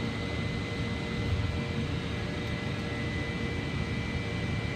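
Steady mechanical hum, a low rumble with a thin, constant high whine over it, running evenly without change.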